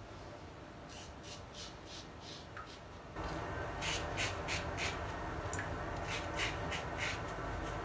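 Slim Twist double-edge safety razor scraping through lathered stubble on the cheek: a run of short, scratchy rasps, one per stroke, sparse at first and quicker and louder from about three seconds in.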